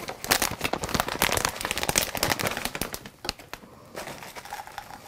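Plastic bag of shredded coconut flakes crinkling and rustling as it is handled and tipped, with a dense crackle for the first three seconds. Quieter, scattered crinkles follow as the coconut is poured into a plastic measuring cup.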